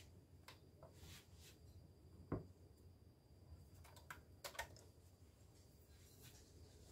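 Near silence broken by a few faint, light clicks and taps as a plastic container is handled on a digital kitchen scale, the sharpest about two and a half seconds in and a small cluster a little past four seconds.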